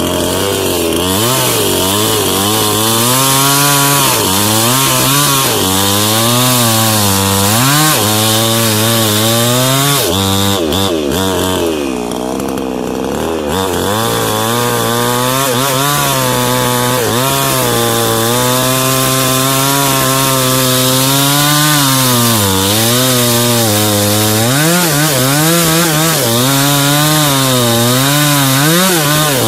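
Small New Paxton chainsaw cutting into a jengkol tree trunk near its base. The engine pitch keeps rising and falling as the chain bites into the wood, and it drops briefly about twelve seconds in.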